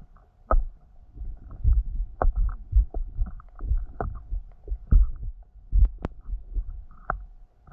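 Muffled low thumps and knocks at an uneven pace, one or two a second, with a few sharp clicks, heard through an underwater camera's housing over a faint steady hum.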